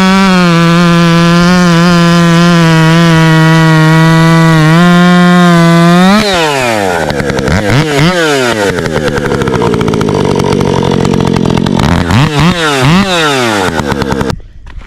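Husqvarna professional two-stroke chainsaw running at full throttle under load, cutting through a thick frozen spruce log without bogging down. About six seconds in the revs drop to idle, with a few quick throttle blips, and the engine stops just before the end.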